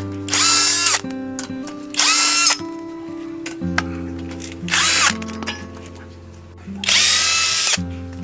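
Electric power tool run in four short bursts, its motor whine rising and falling in pitch with each burst, over background music with sustained notes.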